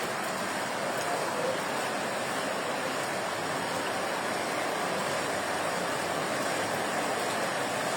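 Floodwater rushing, a steady, even roar of moving water.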